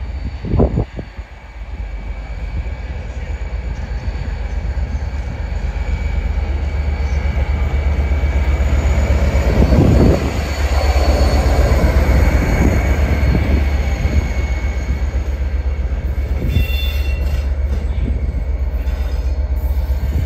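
A train running through the station with a steady rumble that builds to its loudest about halfway and holds, over thin high-pitched wheel squeal. A sharp thump sounds just after the start.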